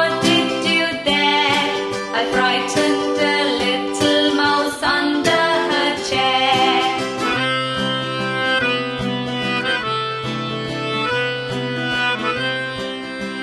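Children's nursery-rhyme music played on plucked strings and fiddle, with a wavering melody line in the first half giving way to steadier held notes.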